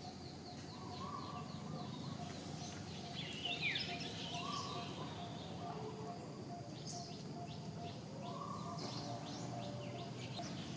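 Birds calling in the background: runs of quick high chirps, a louder sweeping call about three and a half seconds in, and a short lower call that comes back every three to four seconds.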